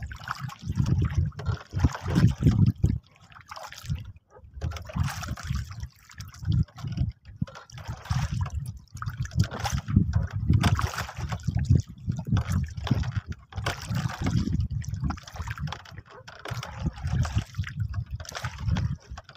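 Sea water lapping and splashing against a small wooden boat while a fishing longline is hauled in by hand, with uneven low rumbling throughout and a brief lull about four seconds in.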